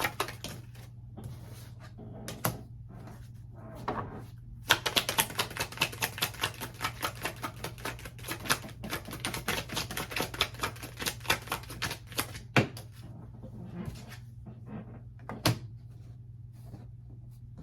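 Tarot cards being shuffled by hand: rapid runs of crisp card clicks, with a couple of louder single snaps near the end. A steady low hum runs underneath.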